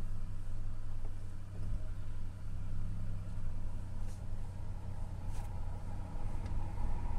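2005 GMC Envoy's engine running steadily at idle, with a few faint clicks.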